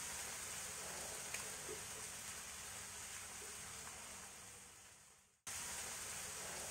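Faint steady sizzling hiss from a kadhai of onion, capsicum and tomato frying in oil as semolina is poured into it from a packet. The sound cuts out abruptly about five seconds in, then resumes.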